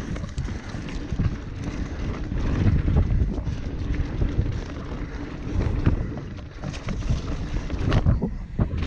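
Wind buffeting the microphone over the rumble of a Ragley Blue Pig hardtail mountain bike riding fast on a dirt trail, its tyres and frame giving off frequent sharp knocks and rattles over bumps.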